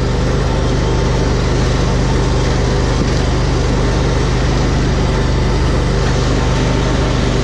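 Engine running at a steady speed, a low, even drone with no change in pitch.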